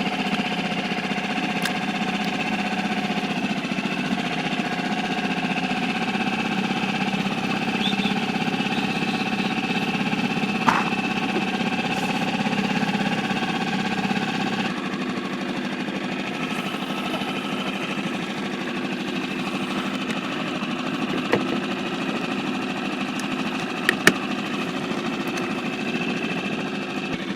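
Small boat outboard motor running steadily at low speed; its note changes and drops a little about halfway through. A few faint clicks and knocks.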